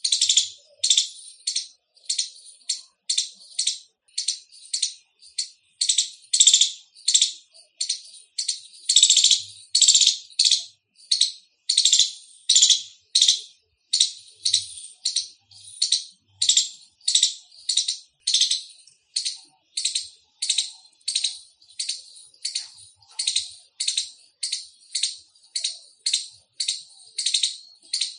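Indian palm squirrel giving its loud chirping call, a steady run of short, high-pitched chirps at about two a second.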